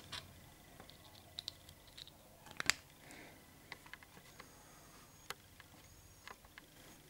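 Scattered small clicks and taps of a hard plastic speedcube piece handled in the fingers, the loudest a little under three seconds in.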